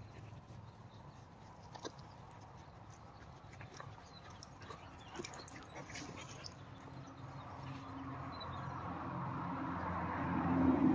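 Dogs playing on grass: faint scuffling with scattered small clicks and thumps. From about two-thirds of the way in, a steady rumble grows steadily louder and is the loudest thing by the end.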